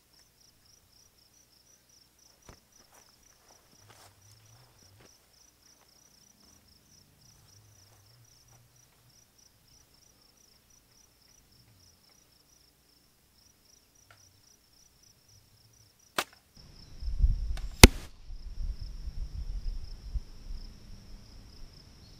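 A compound bow shot goes off with a sharp snap about 16 seconds in. About a second and a half later the loudest sound comes: a broadhead-tipped arrow hitting a beef shoulder blade with a hard crack, followed by wind rumble on the microphone. Before the shot, a steady high insect chirring fills the background.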